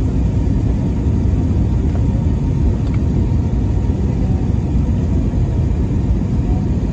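Steady low rumble of an Airbus A321's engine and airflow heard inside the passenger cabin from a window seat beside the engine, during the descent to land.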